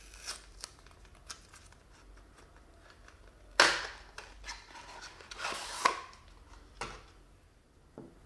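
Hands opening a small cardboard box: a few light handling clicks, then a loud sharp rip about three and a half seconds in as the taped end flap is torn open. Crackling and scraping of cardboard follow as the glass jar is slid out.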